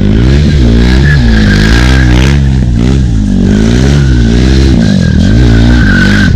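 KTM RC single-cylinder sportbike engine revving up and down over and over as the bike drifts in circles, with a thin high squeal from the sliding rear tyre.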